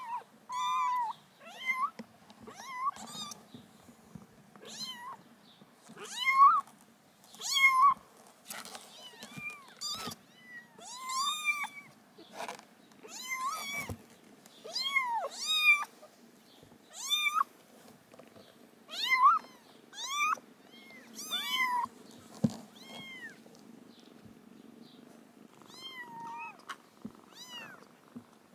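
Young kittens mewing over and over in short, high-pitched calls, about one a second, thinning out over the last few seconds, with a low steady hum underneath.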